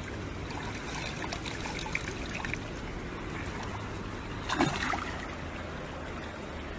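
Steady rush of flowing water with a low hum under it, and a short louder splash-like sound about four and a half seconds in.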